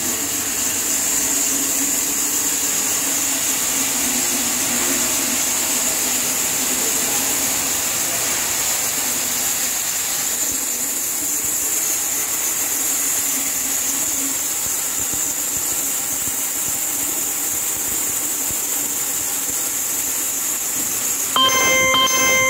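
Jayant vertical bandsaw running and ripping a thick wooden beam, a steady machine noise with a high hiss from the cut. About a second before the end, a louder ringing tone with several pitches starts.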